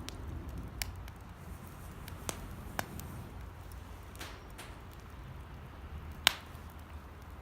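Campfire of damp, water-heavy firewood crackling: about six sharp pops, the loudest about six seconds in, over a low steady rumble.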